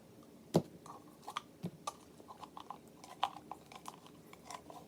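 Clear slime being squeezed and pulled by hand, giving faint sticky clicks and pops, with one sharper pop about half a second in.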